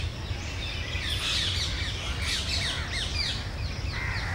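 Birds calling in the undergrowth: runs of quick, short chirps that each fall in pitch, thickest in the middle stretch. A low, steady rumble runs underneath.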